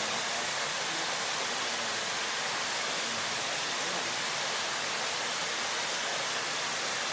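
Waterfall rushing steadily: a continuous, even hiss of falling water.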